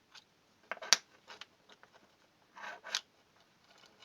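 Small plastic alarm parts being handled on a work surface: two short scraping rattles, about a second in and near three seconds in, each ending in a sharp click.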